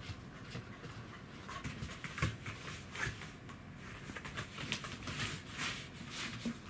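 Pembroke Welsh corgi with degenerative myelopathy scrabbling across a floor mat: claws and paws scratching in quick, uneven scuffs as the weak hind legs drag behind.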